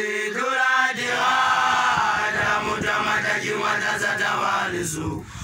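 Young Basotho initiates (makoloane) chanting, led by one boy's loud, high voice that holds a note in the first second, with more voices layered in after.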